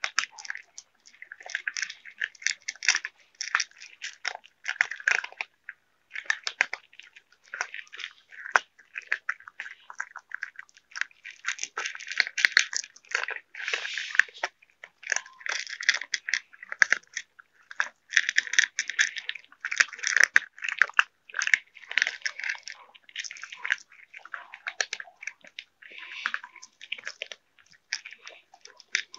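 Cats eating from plastic bowls close to the microphone: rapid wet crunching and smacking chews that come in spells of a second or two with short pauses between.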